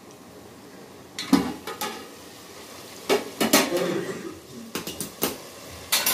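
Aluminium cooking-pot lid lifted off and set down, with several metal clanks and scrapes, followed by a few sharp metal clicks near the end.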